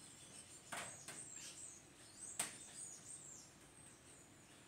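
Near silence with faint, high bird-like chirps in the background and two soft clicks, about one second and two and a half seconds in.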